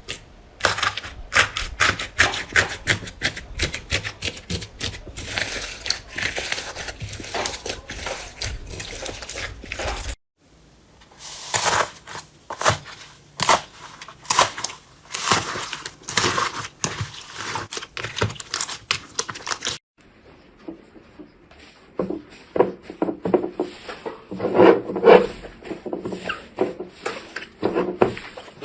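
Slime being squished and poked, giving rapid runs of crackling, popping clicks. The sound cuts off abruptly twice and starts again with a slightly different texture, as separate takes follow one another.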